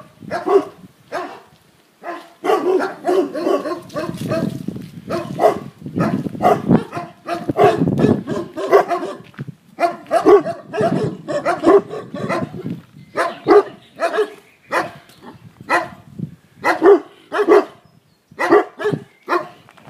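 Large dog barking over and over: guarding barks from a mother dog protecting her puppies. The barks come thick and fast at first, then singly at about one a second in the second half.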